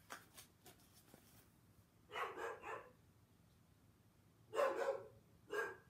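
A dog barking: a quick run of three barks about two seconds in, then two more near the end. Faint rustles of a book page being turned come before them.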